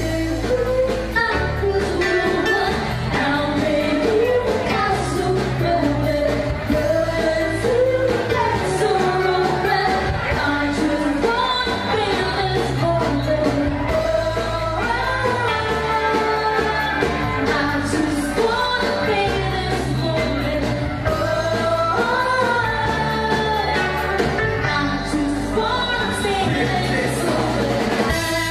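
Live pop band playing, with a singer's melody over bass, drums and keyboards.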